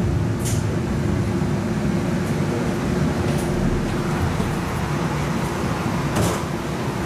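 Interior of a Siemens S70 electric streetcar in motion: a steady low rumble with a constant hum, and a brief hiss about half a second in and again near the end as it nears a stop.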